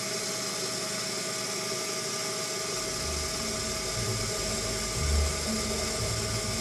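Proxxon PD 250/e mini lathe running steadily with a whine while a boring bar cuts inside a chromoly steel workpiece. A low beat about once a second comes in about halfway through.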